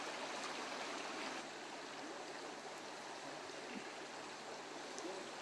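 River water rushing steadily over rapids.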